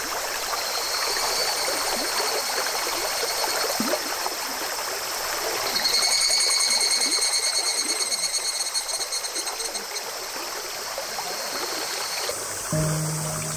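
A small, shallow stream running and trickling steadily. A high pulsing buzz joins about six seconds in and fades around ten seconds, and a low steady tone starts near the end.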